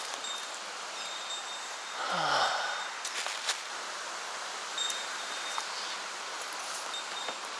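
Steady outdoor rushing noise with a short falling sound about two seconds in and a few light clicks.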